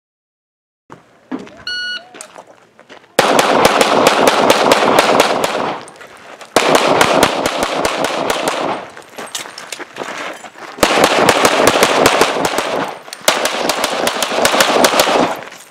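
A short electronic shot-timer start beep, then rapid pistol fire from an EMG Customs Open-division race pistol in .38 Super Comp: fast strings of shots, each two to three seconds long, with short pauses between strings.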